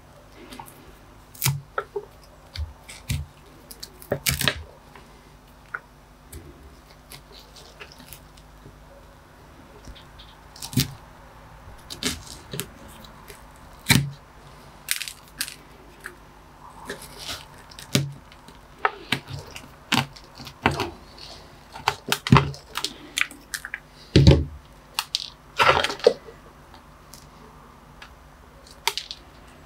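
A pointed metal tool scraping and picking at gritty bonsai soil in a clay pot: irregular scratches and crunchy clicks, with a few louder knocks.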